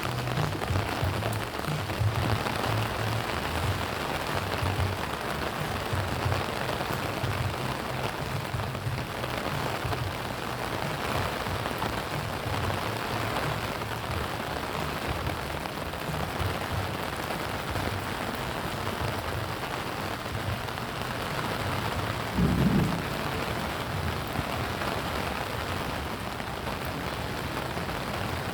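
Steady rain falling, with irregular low thuds underneath and one louder dull thump about three quarters of the way through.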